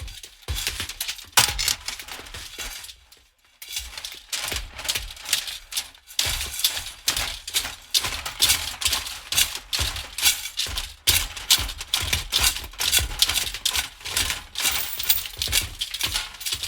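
Metal pieces rattling rhythmically: a run of clinking, clattering strokes, a few pulses a second, with a brief pause about three seconds in.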